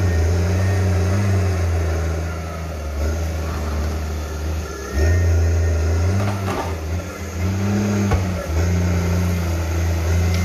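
Crawler tractor's diesel engine working under load as the blade pushes earth, brush and stumps, the engine note sagging and picking up again, with two strong surges about halfway and near the end. A few sharp knocks cut through about two-thirds of the way in.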